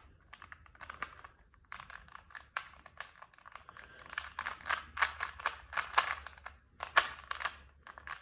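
Rubik's cube layers being turned by hand: quick plastic clicks and clacks in irregular runs, busiest in the second half.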